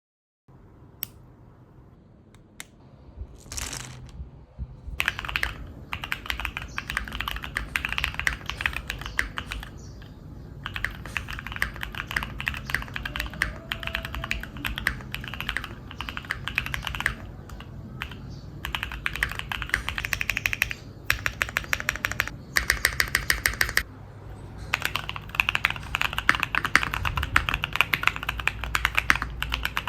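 Neo65 custom mechanical keyboard being typed on: fast runs of keystrokes with short pauses between bursts, after a few isolated key taps at the start.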